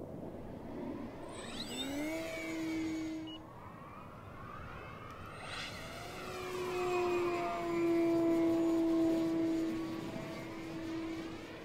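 Tower Hobbies ASW 28 radio-control sailplane flying past, a steady whistling tone over a rushing whoosh that sweeps as it goes by. A short pass comes about two seconds in, then a longer, louder one from about six seconds to near the end.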